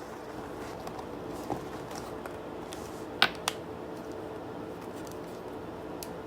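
A few sharp clicks and taps from small beauty products and their packaging being handled, the loudest a pair of clicks about three seconds in, over a steady low hum.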